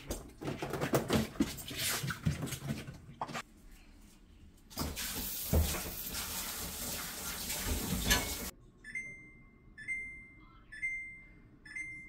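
Plastic parts of a refrigerator clattering and knocking as they are handled, then a few seconds of rushing water like a running tap, which stops abruptly. Then a short electronic beep about once a second, four times.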